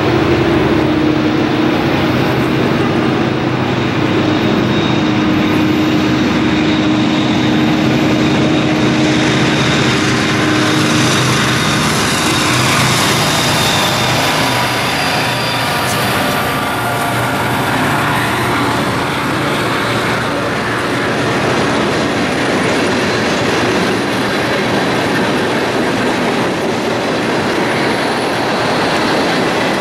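CSX diesel freight train passing close by. For the first ten seconds or so the locomotives' engines give a steady low drone, then the freight cars roll by with a continuous rumble and rattle of wheels on rail and a faint wheel squeal in the middle.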